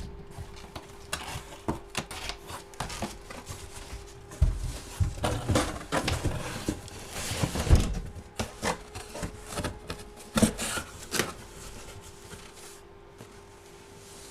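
Irregular taps, clicks and rustles of objects being handled on a table, busiest in the middle and dying down over the last couple of seconds, over a faint steady hum.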